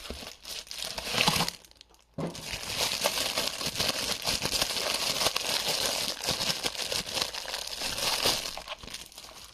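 Packaging crinkling and rustling as it is handled and unwrapped: a short burst about a second in, then a continuous rustle from about two seconds in that fades near the end.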